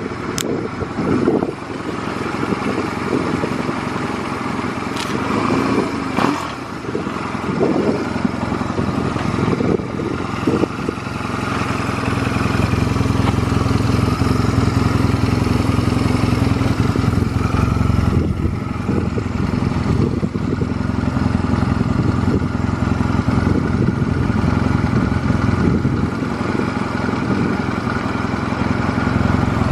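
Honda Rebel 250 (MC13) parallel-twin engine running, uneven with a few sharp knocks and clatters at first, then settling into a steady idle about twelve seconds in. The engine runs without abnormal noise, as the seller states.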